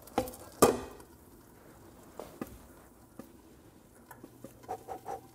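A metal frying pan and a ceramic plate knocking and clinking as the plate is fitted over the pan to flip a tortilla: two sharp knocks near the start, then scattered light taps and a short run of small clinks near the end.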